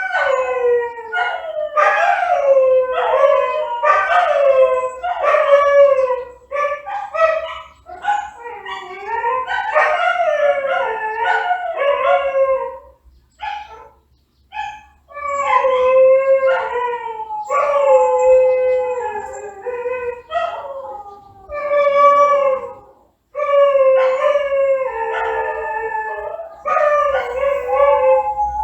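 Dog howling and wailing: a run of short cries that fall in pitch, a brief pause about halfway, then longer drawn-out howls.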